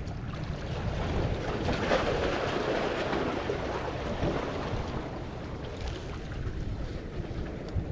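Sea waves washing against breakwater rocks, swelling about two seconds in and easing off, with wind buffeting the microphone.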